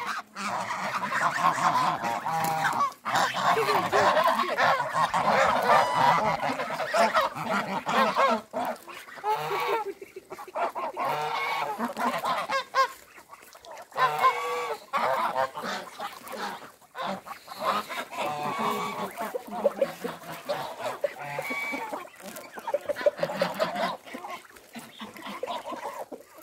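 A flock of domestic geese honking, many calls overlapping. The honking is densest over the first several seconds, then comes in shorter bouts with brief pauses.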